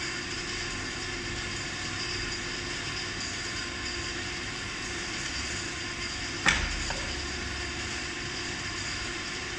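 Steady hum and hiss of room noise, broken about six and a half seconds in by one sharp knock and a smaller one just after, as the scooter is shifted on the floor.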